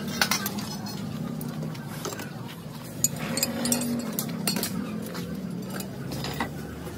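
A long iron rod striking and prodding scrap metal engine parts on a concrete floor: scattered metallic clinks and knocks, the sharpest about three seconds in, over a steady low hum.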